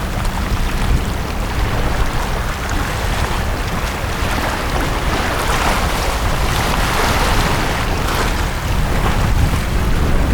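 Sea waves washing onto a beach, with a swell of surf about halfway through and a low wind rumble on the microphone.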